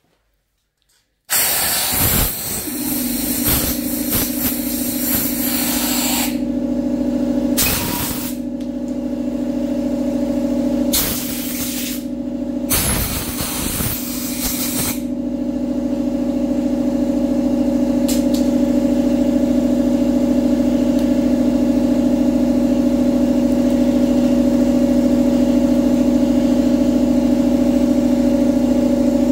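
Drill boring out a stripped head-bolt hole in an aluminium engine block through a thread-insert drill guide, in several harsh bursts during the first half. Under it, a steady motor hum starts about two seconds in and runs on unchanged.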